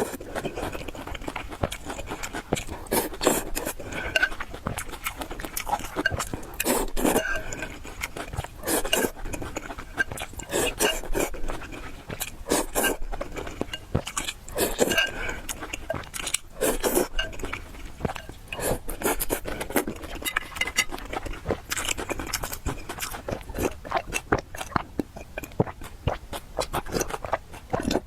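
Close-miked eating sounds: chewing with wet mouth clicks, coming in irregular bursts every second or so.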